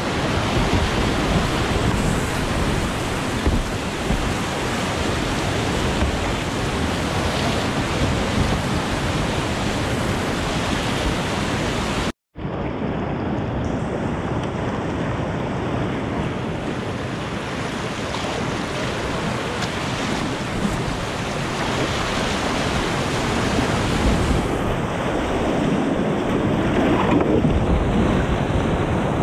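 Whitewater rushing over rocky creek drops and rapids, heard from a kayak running them, with wind noise on the microphone. The rush drops out for an instant about twelve seconds in.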